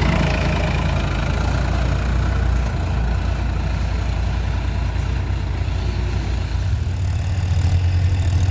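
Heavy diesel engine running steadily with a deep low rumble; its note shifts and grows stronger about seven seconds in.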